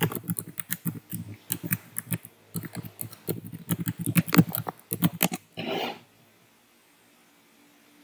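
Computer keyboard typing: quick, irregular runs of key clicks, ending about five and a half seconds in with a short rushing noise.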